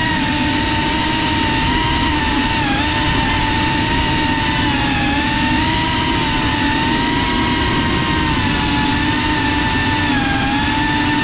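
Brushless motors and propellers of a GEPRC CineLog35 cinewhoop FPV drone in flight, heard through its onboard GoPro: a steady high whine with a rushing wash of air beneath. The pitch dips briefly about two and a half seconds in and again near the end as the throttle eases.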